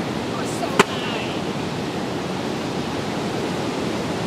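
A single sharp crack about a second in as a metal tool strikes a coconut set on a wooden stump to split it, with a brief ring after the hit, over a steady wash of surf.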